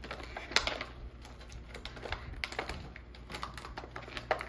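Clear plastic toy packaging crinkling and rustling in short, irregular crackles and clicks as hands pull and pick at the tape holding it shut.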